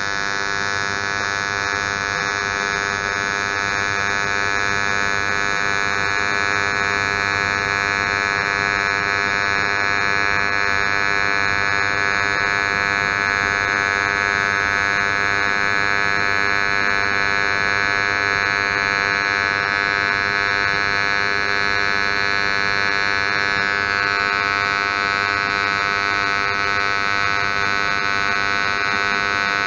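Robotic cold-wire TIG welding arc, buzzing steadily and loudly.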